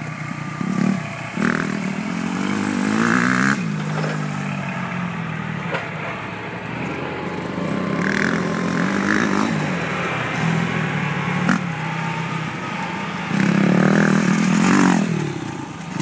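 Suzuki RM-Z250 four-stroke single-cylinder motocross bike being ridden around a dirt track, revving up and dropping back again and again through the gears. It is loudest about three seconds in and again near the end as it comes close.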